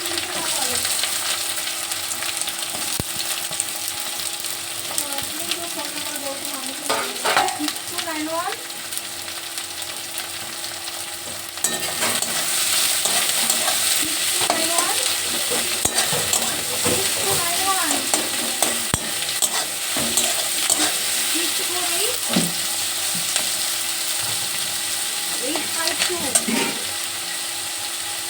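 Chopped onion sizzling in hot mustard oil in a kadai as it is stirred, with short scrapes and clinks throughout. The sizzle gets louder about twelve seconds in.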